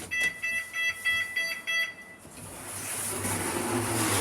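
A lift's electronic beeper giving a rapid run of short high beeps, about four a second, for roughly two seconds. After that, a rushing noise with a low hum builds steadily.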